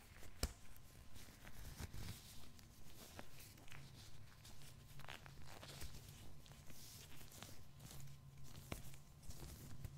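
Blue latex gloves crinkling and crackling as they are stretched and pulled onto the hands close to the microphone, with one sharp snap about half a second in.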